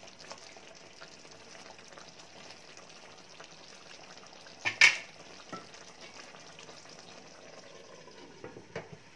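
Chicken in coconut-milk sauce simmering in a frying pan, stirred with a wooden spoon, with small scrapes and clicks over a steady hiss. A single sharp knock just before five seconds in is the loudest sound, and a few clinks near the end come as a glass lid is set on the pan.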